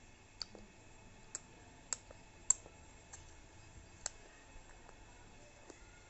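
Small, sharp mouth clicks and lip smacks from a baby chewing and working its tongue, about six at uneven intervals, the loudest about two and a half seconds in.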